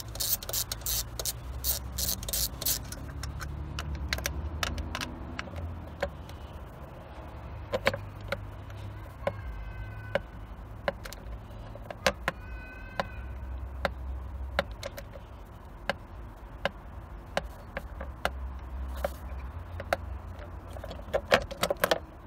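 Ratchet wrench clicking in quick strokes, about four a second, as bolts on the engine's top cover are undone. Then come scattered tool clicks and knocks, with two short squeaks in the middle, over a steady low hum.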